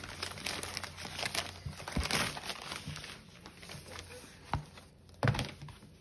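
Packing material crinkling and rustling as books are pulled out of a shipping box and handled, with a few soft thumps as books are set down.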